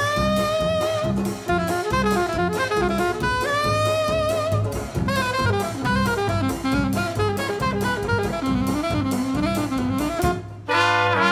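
Small traditional jazz band playing: an alto saxophone carries the melody over banjo, double bass and drum kit, and the full front line of trumpet, clarinet, trombone and saxophone comes in together near the end.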